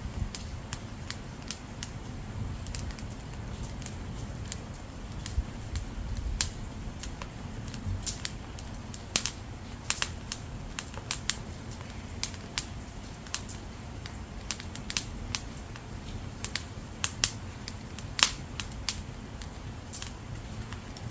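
Dry split firewood burning, crackling with irregular sharp pops over a low, steady rumble of flame. One pop about eighteen seconds in is the loudest.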